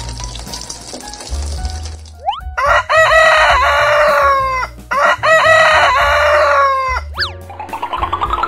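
A rooster crowing twice, each crow about two seconds long, over background music. Near the end comes a rising run of tones.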